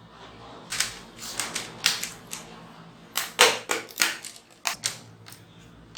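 Plastic screen bezel of a laptop being pried off, its clips popping loose in an irregular series of sharp clicks and snaps.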